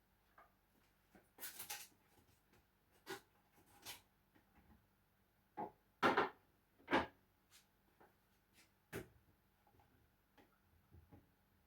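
Irregular knocks, clicks and short scrapes of hands handling kitchen things, with the loudest pair about six seconds in.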